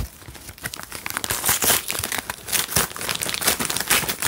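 Cardboard shipping box being opened by hand: irregular crinkling, crackling and tearing of cardboard and packing material.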